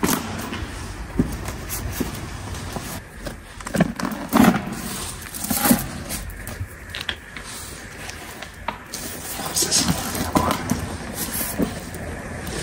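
Scattered scrapes, knocks and rustles of handling: a hardback book picked up off a gritty, debris-covered floor and turned in the hand. The loudest knocks come around the middle.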